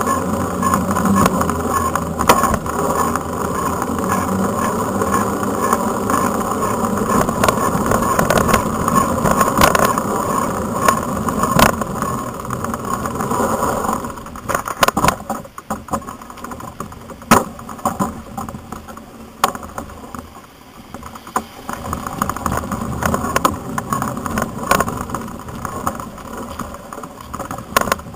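Rumble of a 2007 Mongoose Tyax Elite mountain bike rolling at speed, picked up by a camera fixed low on the bike, with wind on the microphone and sharp knocks and rattles from bumps. About halfway through, the rumble gets quieter and more uneven, and single knocks stand out.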